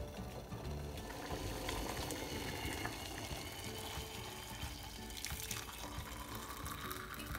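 Just-boiled water poured from a stainless steel saucepan into a ceramic mug over a tea bag: a steady splashing stream of liquid.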